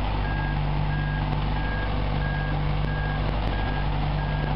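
Boatyard travel lift's engine running steadily while its warning alarm beeps in one high, even tone, about one and a half beeps a second.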